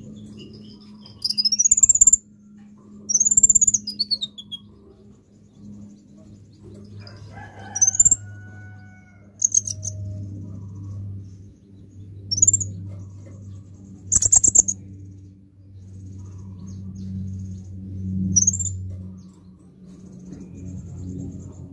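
A caged male sunbird (kolibri ninja) giving sharp, high chirps every few seconds, several of them sliding down in pitch, over a low steady hum.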